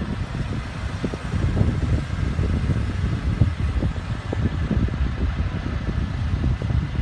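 CAT TH414C telehandler's diesel engine running, a steady low rumble.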